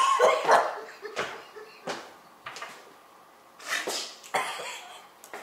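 A man's pained non-verbal cry at the start, followed by several harsh, gasping breaths, as he reels from the burn of too much real wasabi.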